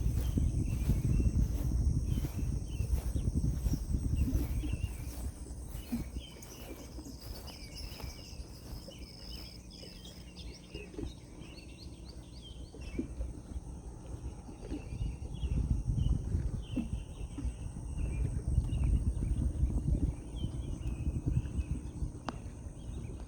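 Dawn lakeside chorus: many small birds chirping and calling over a steady, high-pitched insect drone, with one clear whistled note a few seconds in. Gusts of low wind rumble on the microphone come at the start and again about two-thirds of the way through.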